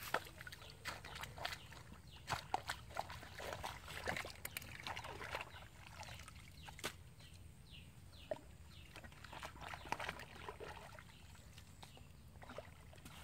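Shallow water sloshing and splashing unevenly, with scattered sharp wet clicks and knocks, the loudest about two seconds in, around four seconds in and near ten seconds.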